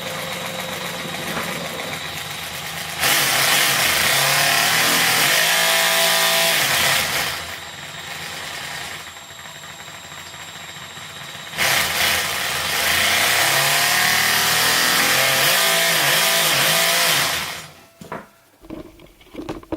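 Homemade mechanical V8 sound generator for an RC truck: a geared-down wheel with pegs and teeth clacking, powered off the truck's motor so its rate follows the throttle. It runs slowly at first, then is throttled up loud twice for several seconds each with a quieter stretch between, and dies away near the end.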